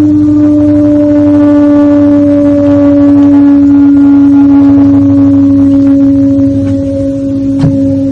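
Humpback whale song: one long, low moan held steady, its pitch sinking slightly, with a faint click near the end.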